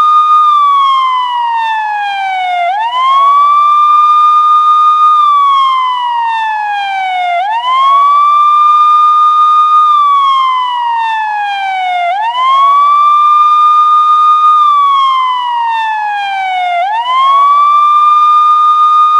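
Ambulance siren wailing. Each cycle rises quickly, holds its top pitch for about two seconds, then slides slowly back down before rising again, repeating about every four and a half seconds.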